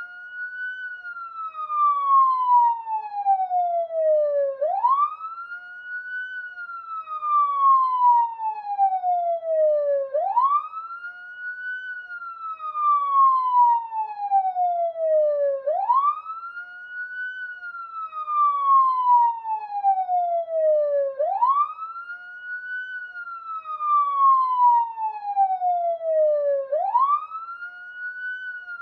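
Police siren sounding a continuous wail. Each cycle sweeps up quickly, then slides slowly back down, repeating about every five and a half seconds.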